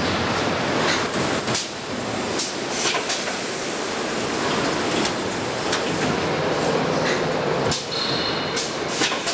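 Plastic injection moulding machines running: a steady, dense mechanical din with short sharp noises every second or few.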